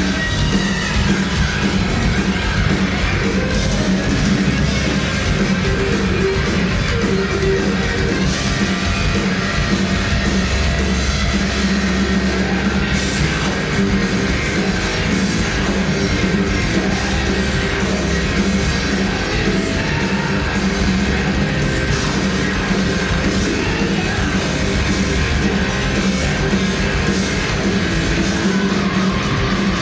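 Heavy metal band playing live at full volume: distorted electric guitars through Marshall stacks, drums and a singer shouting into the microphone.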